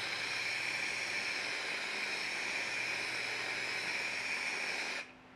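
Aerosol can of plastic bumper paint spraying a steady hiss as the second coat goes onto a plastic grille; the spray stops abruptly near the end.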